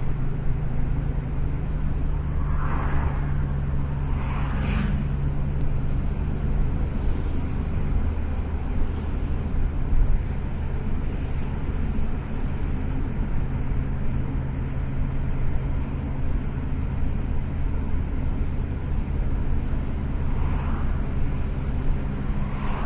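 Steady engine and road noise of a car driving, heard from inside its cabin, with a constant low hum.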